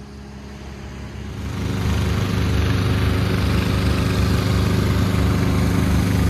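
Engine of a self-propelled rail spike puller running as the machine travels along the track, growing louder over the first two seconds and then holding with a steady low pulse.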